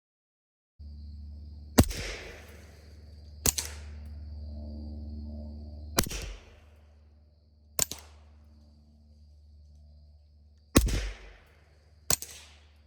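Six suppressed subsonic pistol shots in three pairs: in each pair a shot with a longer ringing tail is followed a second and a half to two seconds later by a shorter, sharper one. These are a Glock 19 9mm with a Cat SC suppressor and a Taurus TX22 .22 LR with a Cat SR suppressor, fired alternately for comparison. A steady low hum runs under the shots.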